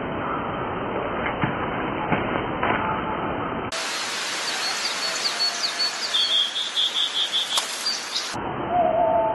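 Steady outdoor background hiss with a few faint clicks. About four seconds in, short high bird chirps and a quick run of chirping notes come through over it.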